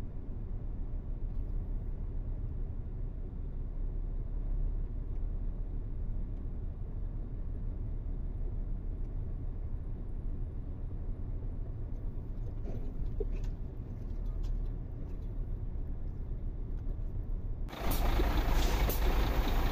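Truck diesel engine running with a steady low rumble, heard from the cab. Near the end a sudden, much louder rush of noise cuts in.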